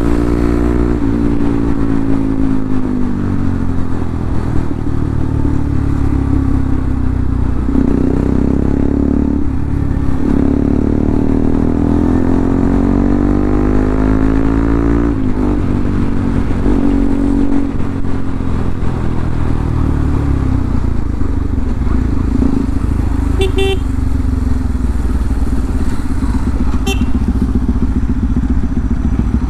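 Bajaj Pulsar NS200's single-cylinder engine heard from the rider's seat while riding hard, its note climbing and dropping several times as the revs change.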